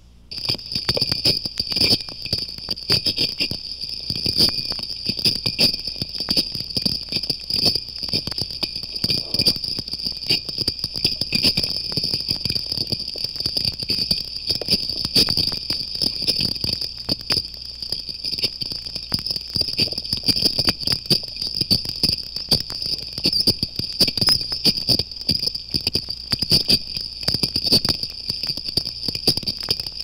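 Oceanic triggerfish and parrotfish biting and scraping live coral from coral rock as they feed, recorded underwater. It is a dense, uneven crackle of rasping clicks, like striking a match on sandpaper, over a steady high hiss.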